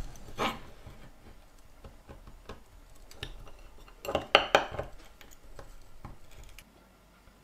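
A table knife sawing into a hard tennis-ball-shaped chewing gum ball on a plate, the blade scraping and clicking against the firm shell and the plate. A louder run of quick scrapes comes about four seconds in, and the cutting stops shortly before the end.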